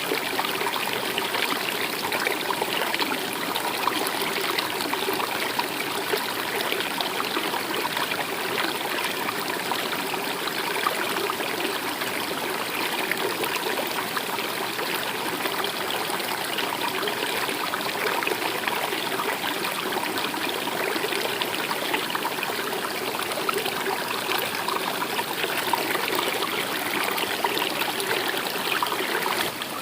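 Stream water flowing and trickling, a steady, even rush.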